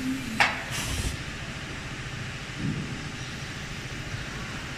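Automatic CNC glass cutting machine running with a steady mechanical noise; about half a second in comes a sharp click, followed by a short hiss.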